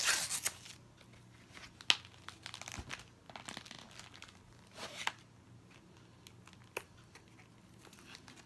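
Plastic packaging of a Pokémon card collection box being handled and pulled open: intermittent crinkling and tearing, with a sharp snap about two seconds in.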